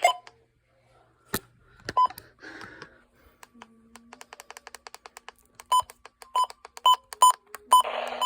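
Short sharp keypad beeps from a radio receiver being switched between weather radio stations, about one every half second later on, with a run of rapid faint clicks in the middle and brief bursts of radio hiss as channels open.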